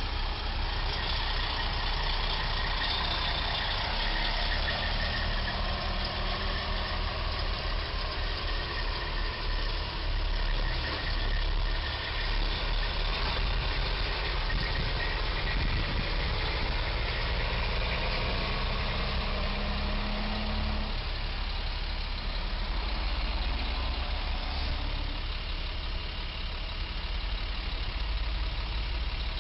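Road traffic at an intersection: vehicle engines running and idling. About two-thirds through, one engine note climbs slowly for several seconds, then drops away abruptly.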